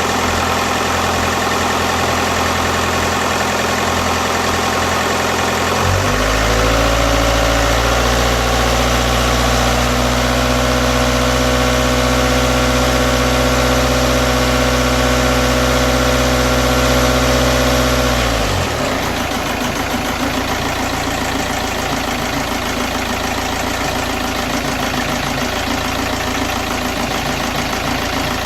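VW 2.0 TDI (BKD engine code) four-cylinder diesel running cold with a rough idle. About six seconds in the engine speed steps up and is held steady for about twelve seconds, then falls back to idle.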